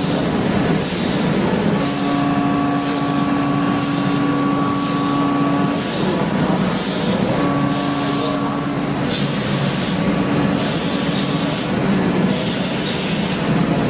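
Industrial machinery running loudly and steadily, with a hiss that pulses about once a second. A steady hum with higher whining tones comes on about two seconds in, drops out near the six-second mark and returns briefly after that.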